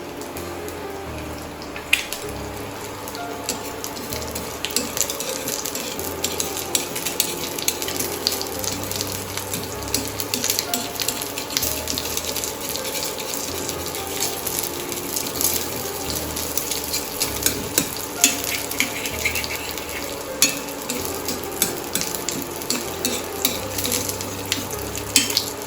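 An egg omelette frying in oil in a pan, with a steady sizzle and dense crackling throughout. It is being fried on one side only, leaving the top soft.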